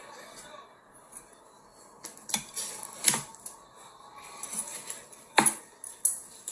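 Cutlery and dishes clinking: a few sharp clicks and knocks, starting about two seconds in.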